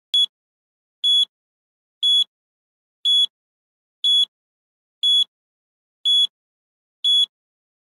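Quiz countdown timer beeping: eight short, high-pitched electronic beeps, one each second, with silence between them.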